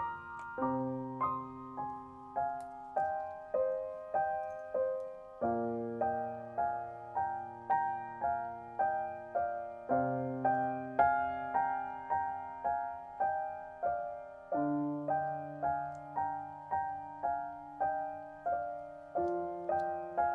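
Gentle background piano music: a steady run of notes, about two a second, over a low bass note that changes every four or five seconds.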